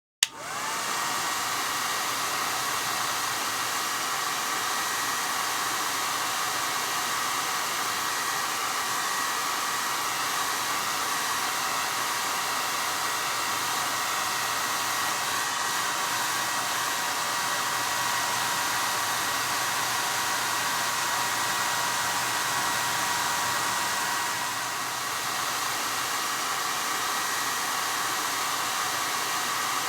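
Hair dryer switched on with a click, its motor whine rising briefly to speed, then running steadily with a rush of air and a steady whine. It dips slightly in level about 25 seconds in.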